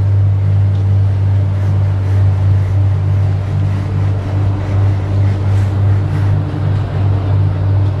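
Large diesel engine running steadily with a constant low hum, from a tracked slipform concrete paver.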